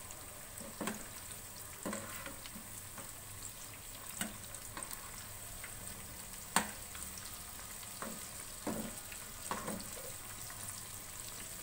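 Pieces of masala-coated mutton sizzling steadily as they shallow-fry in hot oil over a high flame, the second side browning after turning. Scattered sharp clicks and ticks sound over the hiss, the loudest about halfway through.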